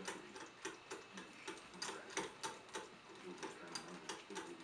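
Six-week-old shichon puppies wrestling in their pen: light, irregular clicking, three or four clicks a second, over faint scuffling.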